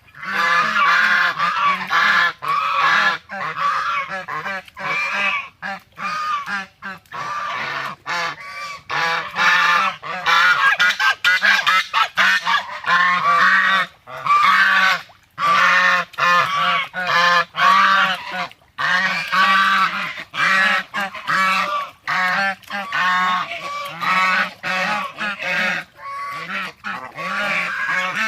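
A flock of birds calling loudly over one another, many overlapping pitched calls following each other with only brief gaps.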